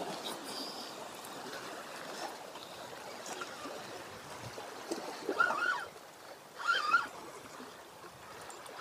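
Small waves washing and trickling over the shore rocks, a steady wash, with two short chirps about five and a half and seven seconds in.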